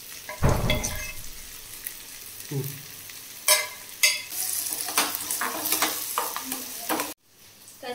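Sliced onions and green chillies sizzling in hot oil in a steel kadai, with a slotted metal spatula stirring and clacking against the pan. A thump about half a second in, and the sizzling grows louder after the stirring starts, then cuts off suddenly near the end.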